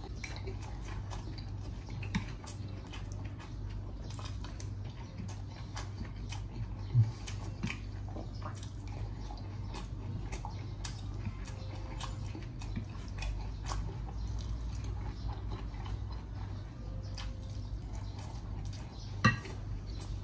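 A person eating pineapple sweet-and-sour pork: chopsticks and dishes clicking and chewing, many small clicks over a steady low hum, with two louder knocks, one about seven seconds in and one near the end.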